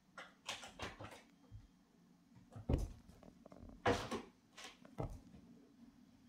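Russian blue cat jumping and scrambling about a carpeted cat tree after a wand toy: a series of dull thumps and knocks, the loudest nearly three and four seconds in.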